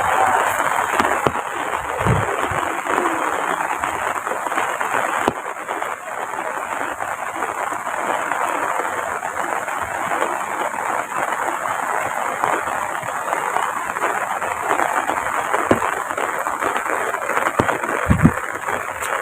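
Heavy rain falling steadily: a dense, even hiss of a downpour, with a few low thumps about two seconds in and near the end.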